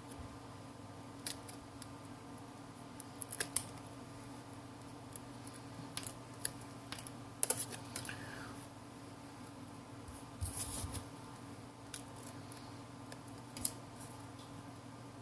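Opening pick scraping and clicking in the heated, glued seam of a Samsung Galaxy A3 (2015) as it is pried apart, in short scattered clicks over a steady low hum.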